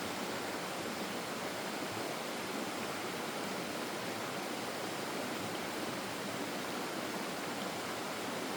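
Stream water flowing steadily, an even rushing sound with no distinct splashes.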